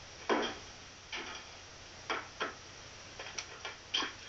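Scattered short knocks and clicks at uneven intervals, the strongest about a third of a second in, over a faint hiss, played through a laptop speaker.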